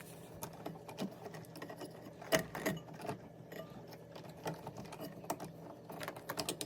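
Irregular light clicks and taps of wires and wire nuts being handled and pushed into a dishwasher's metal electrical junction box, the loudest about two and a half seconds in.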